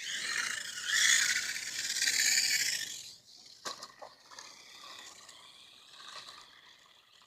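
RC car's motor and drivetrain whining at full throttle for about three seconds, then running quieter with a couple of sharp knocks.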